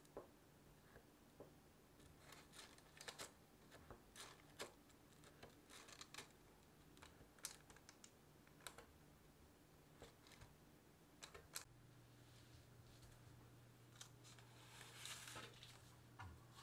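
Faint, irregular light taps of a metal fork pricking holes in cookie dough pressed into a lined baking pan, about one or two taps a second. The taps thin out about two-thirds of the way in, where a faint low hum comes in.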